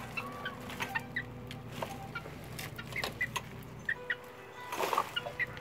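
Hen giving soft clucks and short high chirps while she forages, with a few sharp taps of her beak on a tile floor.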